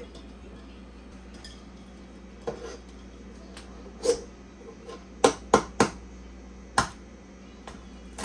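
Sharp clicks and knocks of kitchenware on a hard surface: single taps, then three quick ones in a row about five seconds in, and another about a second later.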